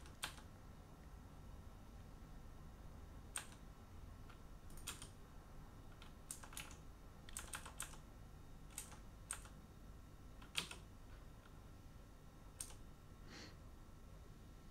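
Faint, scattered computer keyboard keystrokes: a dozen or so single clicks at irregular intervals over a low steady hiss, one a little louder about ten and a half seconds in.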